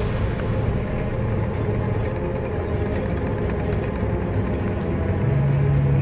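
Engines of armoured vehicles running in a steady drone as they drive past. Near the end a louder, deeper engine hum comes in.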